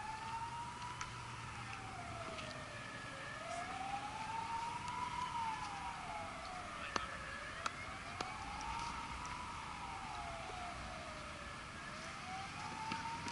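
Emergency vehicle siren sounding a slow wail, rising and falling about once every four seconds, with a few faint clicks in the middle.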